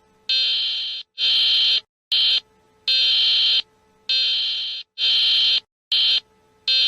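Emergency alert alarm tone: a loud, high-pitched buzzing beep switched on and off about once a second, mostly long beeps with an occasional short one, with silent gaps between.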